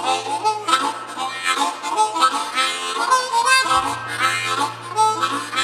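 A harmonica played with cupped hands: a quick run of short notes and chords that stops abruptly at the end.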